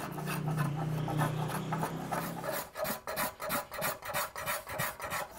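Hand tool scraping and shaving the curved wooden seat of an ox yoke. A steady low hum runs under quick strokes for the first half; after that the strokes come singly, about three a second.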